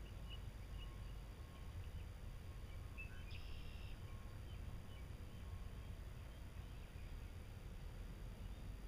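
Quiet outdoor lakeside ambience: faint short bird chirps come and go over a steady low rumble, with one brief, brighter call about three seconds in.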